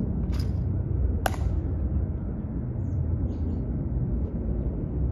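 Steady low outdoor rumble, with one sharp click about a second in and a few faint high chirps near the middle.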